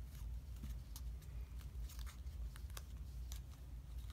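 Origami paper being folded and creased by hand: scattered small crinkles and clicks of the paper, over a steady low hum.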